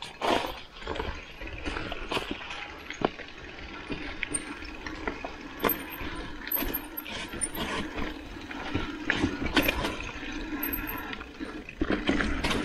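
Mountain bike rolling fast down a dirt forest trail: tyre noise over soil and leaves, with frequent rattles and knocks as the bike bounces over bumps.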